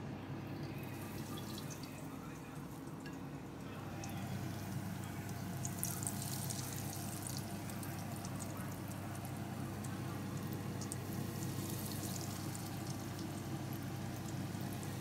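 Breaded chicken nuggets deep-frying in hot oil in a small pan: steady sizzling with dense crackling, growing louder about four seconds in.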